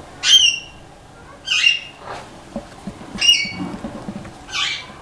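A bird squawking four times, short high harsh calls about every second and a half.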